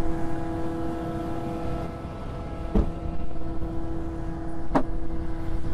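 Engine of a well service truck running steadily at constant speed, a held hum, with two short sharp knocks, one about three seconds in and one near five seconds.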